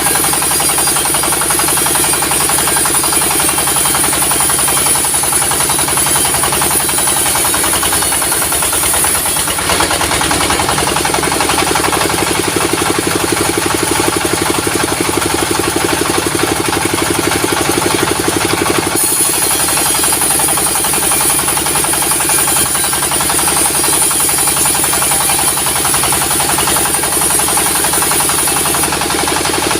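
Sawmill machinery running steadily: an engine with a fast, even beat drives the saw. A high whine fades for about ten seconds in the middle and then returns.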